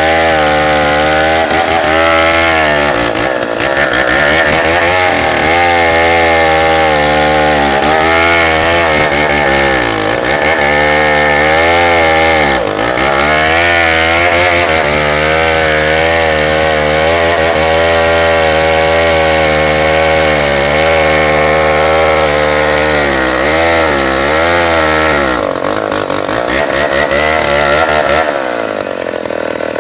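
Tecogold 700 two-stroke chainsaw cutting bengkirai hardwood, the engine note rising and falling continuously as the chain loads and frees in the cut. It sags in pitch several times, most deeply near the end.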